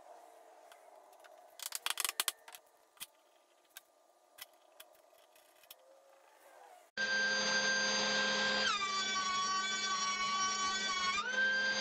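Small bar clamps clicking and ticking as they are set on a glued edge. Then, about seven seconds in, a benchtop thickness planer is heard running with a steady whine that drops in pitch as a board feeds through and loads the cutterhead, and rises again as the board comes out.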